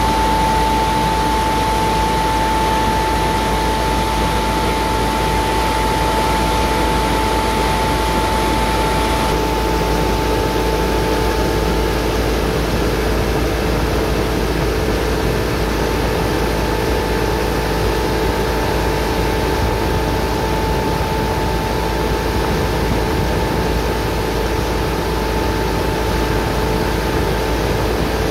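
Wet shell transport fan in a palm oil mill, driven by a three-phase electric motor, running steadily: a loud, even mechanical noise with a steady whine over it.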